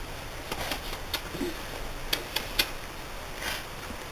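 Light scattered clicks and soft rustling from chihuahua puppies scrambling about on a blanket among their toys, with about half a dozen sharp ticks and a soft swish near the end.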